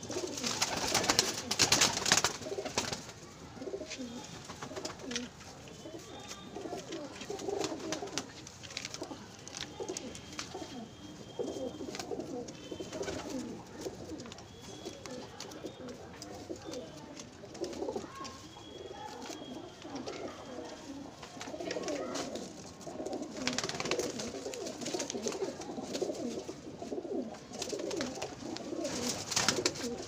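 Domestic pigeons cooing continuously in a loft, with a louder burst of noise about a second in.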